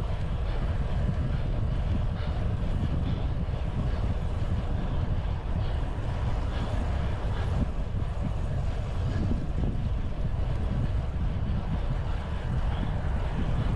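Steady wind rush buffeting the microphone of a moving bicycle, with a low rumble of road noise underneath.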